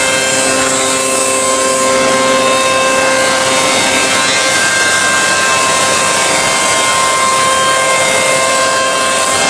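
Through-feed CNC woodworking machine for doors running, a steady whine at several pitches over a loud, even machining noise.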